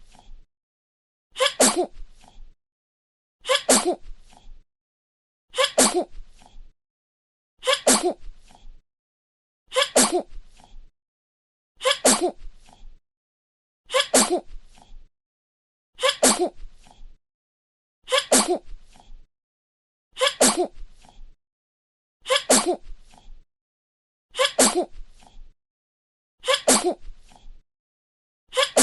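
A baby's sneeze, the same recording repeated about every two seconds with complete silence between. Each sneeze is a sharp burst followed by a short, weaker tail.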